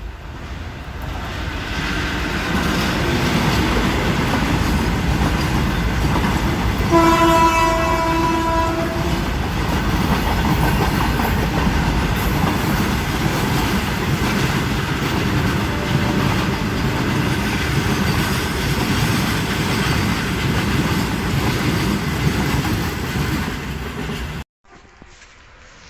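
A train passing close by, rumbling and clattering over the rails, growing louder over the first few seconds. About seven seconds in, its horn sounds once for about two seconds. Near the end the sound cuts abruptly to a quieter rail recording.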